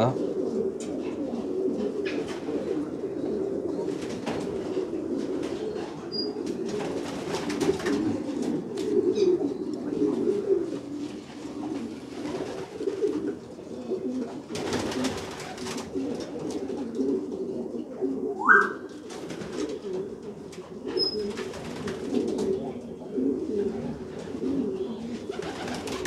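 Homing pigeons in a loft cooing continuously, several voices overlapping. A few brief rustling noises and one short rising call about eighteen seconds in break through the cooing.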